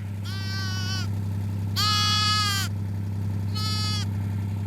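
A sheep bleats three times, the middle bleat the longest and loudest, over a vehicle engine running steadily.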